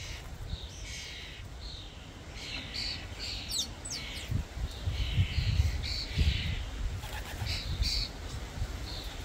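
Common starlings giving short, harsh, rasping calls again and again, with a few thin rising whistles about three and a half seconds in. A low rumble underneath grows louder through the middle.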